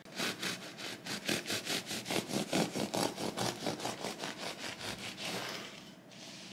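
Knife sawing through a loaf of freshly baked shokupan with a crisp crust, in quick even back-and-forth strokes about six a second. The strokes stop about five and a half seconds in.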